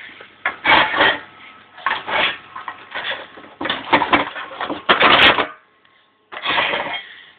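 MIG welding arc crackling and sizzling in several short stop-start bursts as a beginner strikes and breaks the arc. The longest and loudest burst comes about five seconds in.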